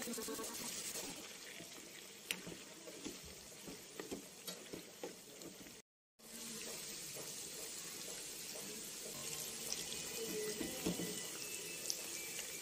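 Chicken pieces deep-frying in a pan of hot oil: a steady sizzle with scattered pops and crackles. The sound drops out completely for a moment about six seconds in.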